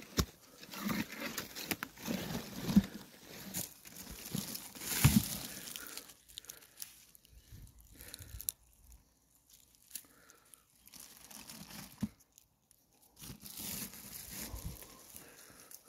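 Rustling and crunching of footsteps and of a person brushing through oak scrub, dry leaves and grass, in irregular bursts. The bursts are busiest in the first half, thin out in the middle and pick up again near the end.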